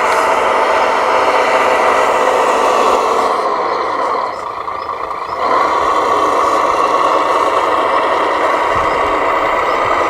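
Electric motors and gearboxes of radio-controlled construction models running with a steady mechanical whir, dropping away briefly about four seconds in before picking up again.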